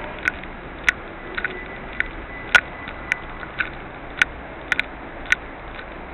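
Footsteps on a concrete floor: sharp heel clicks at a steady walking pace, about one every half second, over a steady background hiss.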